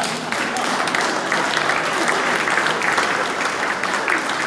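Audience applauding: a crowd clapping hands steadily and densely after a speech.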